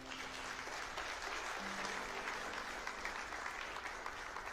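Congregation applauding, with soft instrumental music holding sustained notes underneath.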